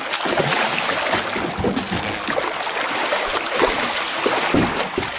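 Water splashing and churning as a hooked sevengill shark thrashes against the side of the boat, with a few dull thumps.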